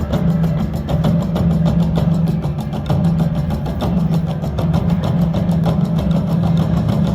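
Slot machine's free-games bonus sounds: a steady, low droning tone that pulses on and off, with many quick clicks over it as the reels spin and stop.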